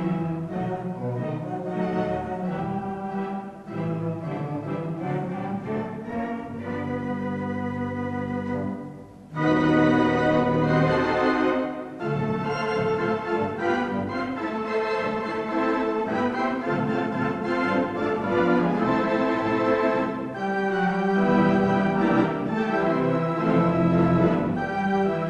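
Wurlitzer theatre pipe organ playing, mostly held chords; about nine seconds in it breaks off briefly and comes back louder.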